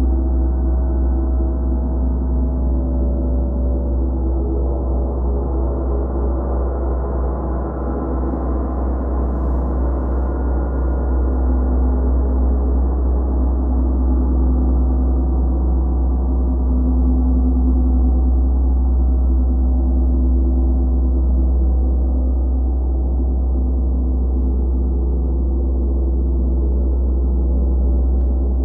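Gongs played continuously in a gong bath: a dense, sustained wash of many overlapping ringing tones over a strong deep hum, swelling slightly in the middle.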